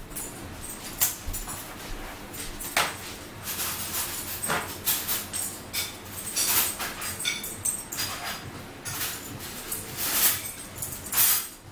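Paper towels being pulled off a roll, torn and handled: a string of short rustling and tearing sounds.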